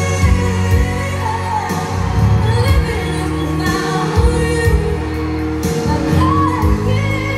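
A song with singing over a steady beat, played through a pair of JBL LX-44 loudspeakers driven by an Onkyo A-9310 integrated amplifier.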